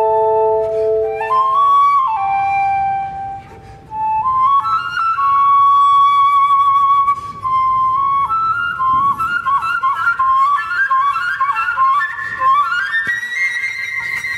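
Woodwind quintet music based on birdsong, with the flute leading. A held lower chord ends about a second in, and after a short pause the flute plays short phrases and quick fluttering runs that climb to a held high note near the end.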